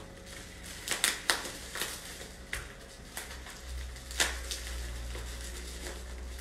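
Scissors cutting through plastic bubble wrap around a parcel: a series of irregular snips and crinkles.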